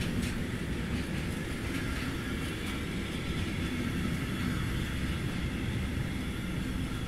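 Intermodal freight train of pocket wagons rolling past under braking: a steady rumble of wheels on rail, with light clicking over the rail joints in the first few seconds.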